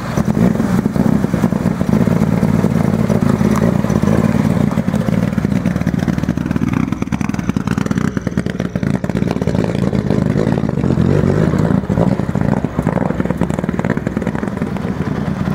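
Rally car engine running steadily.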